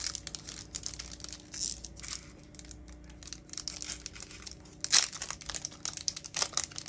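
Foil Pokémon card booster pack crinkling and tearing as it is ripped open by hand: a run of sharp crackles, the loudest about five seconds in.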